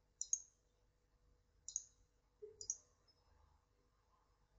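Computer mouse buttons clicking: a quick double click just after the start, a single click a little under two seconds in, then another double click, with quiet in between.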